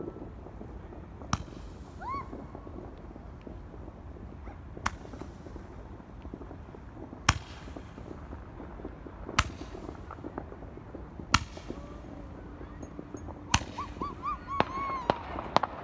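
Fireworks going off: sharp bangs about every two seconds, with short whistling tones and a flurry of smaller pops and whistles near the end.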